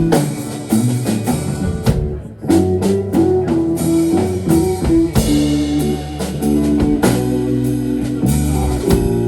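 Live rock band playing an instrumental passage with guitars and drum kit, with a brief break about two seconds in before the band comes back in.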